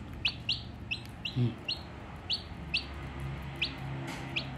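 A day-old chick of a Brahma-cross rooster and a laying hen peeps in short, high notes, about two a second, while it pecks at its feed.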